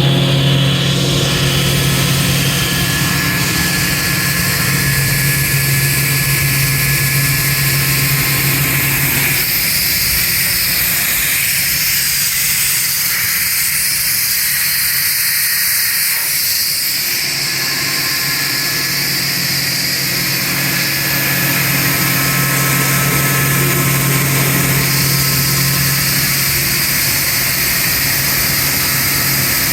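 Quincy QSB-25 25 HP rotary screw air compressor running, its airend pump turning: a steady low hum under a loud hiss. The hum drops away for several seconds from about a third of the way in, then comes back.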